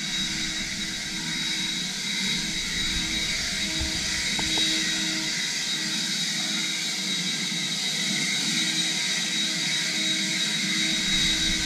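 Greenworks 40-volt battery-powered leaf blower running steadily, a rush of air with a high steady fan whine.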